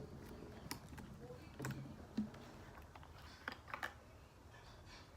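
Faint, scattered soft clicks and sticky pops of homemade slime being worked by hand.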